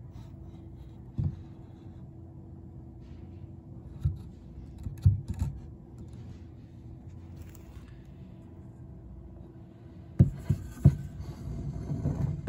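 Steady low hum with a faint steady tone, broken by scattered dull knocks and scrapes. The loudest is a cluster of three knocks about ten seconds in, followed by rustling near the end.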